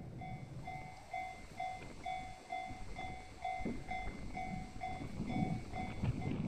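Railway level-crossing alarm ringing its repeated electronic bell, about two strikes a second, the warning that a train is approaching. A low, uneven rumble runs underneath.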